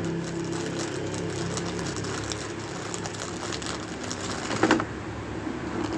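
Clear plastic packaging crinkling and rustling as small camera accessories are handled, over a steady low hum, with one brief louder sound about three-quarters of the way through.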